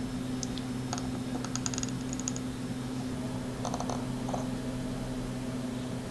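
Solder being melted onto circuit-board pads with a soldering iron: the rosin flux crackles in a few short clusters of tiny ticks, around one to two seconds in and again near four seconds, over a steady low hum.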